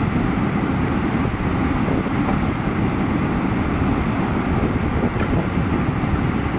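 Diesel engine of a Caterpillar 320D FM track-mounted forestry machine running steadily, its sound mostly low-pitched and even.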